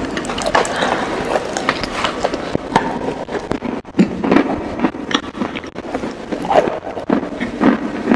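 Close-miked eating of chicken wings: chewing and crunching with many short, sharp crackles throughout.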